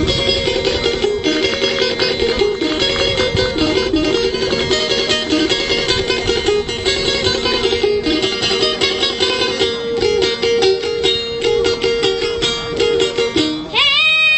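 Instrumental break of Albanian folk-style music: a fast melody of rapidly picked plucked-string notes over a steady drone. A child's singing voice comes back in with a long held note just before the end.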